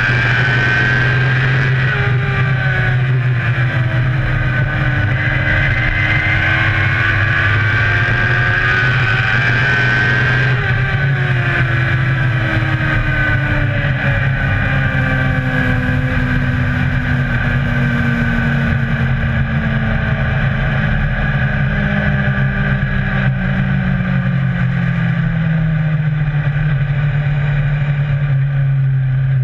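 Dirt-track race car engine heard from inside the open cockpit over a steady low drone. For the first ten seconds its pitch rises and falls with the throttle. After that the car eases off and the engine pitch falls steadily to the end.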